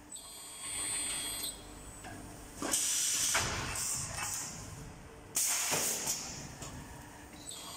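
Lid wrapping machine running: its pneumatic cylinders let off air in two sharp hisses about two and a half seconds apart, with a short high whine near the start and again near the end.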